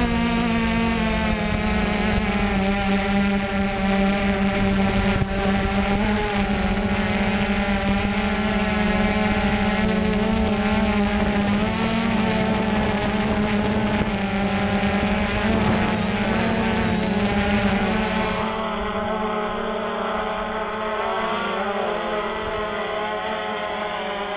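DJI Phantom 2 quadcopter's four electric motors and propellers running in flight, a steady buzzing hum with a fixed pitch, heard from the camera on the drone. About three quarters of the way in the sound changes and gets slightly quieter, the hum wavering in pitch as the hovering quadcopter is heard from a short distance.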